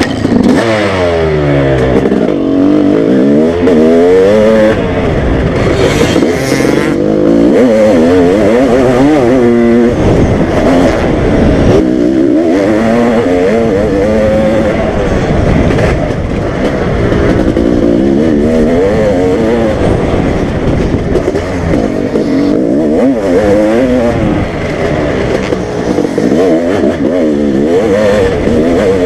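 Honda motocross bike's engine ridden hard, revving up and falling back again and again as it goes through the gears, heard from the bike's onboard camera.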